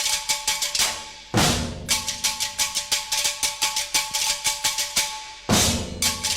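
Background music driven by fast, even drumming over steady instrumental tones, with a heavy crash-like hit about a second in and another near the end.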